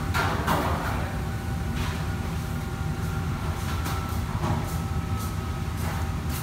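Commercial kitchen background: a steady low ventilation hum, with short clatters and clinks of metal trays and utensils every second or so.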